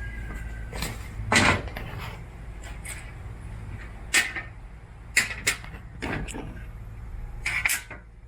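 Scattered clicks and knocks, about eight in all, of metal and plastic parts being handled at a walk-behind lawn mower's drive housing, over a steady low hum.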